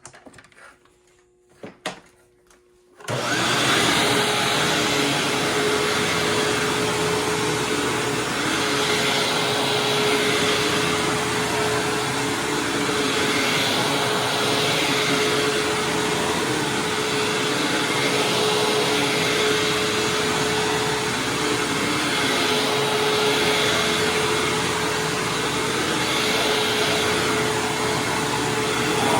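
A few clicks, then a Hoover Windtunnel Supreme upright vacuum cleaner switches on about three seconds in and runs steadily with a constant hum as it is pushed back and forth over carpet.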